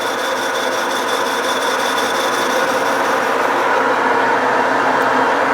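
Metal lathe running with a boring bar cutting inside a pulley's bore: a steady cutting noise, with a faint high whine that fades out about halfway through.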